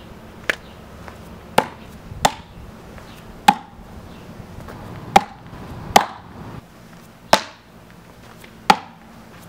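Throwing hatchet striking a wooden stump target: a series of about eight sharp knocks roughly a second apart, each with a brief ring.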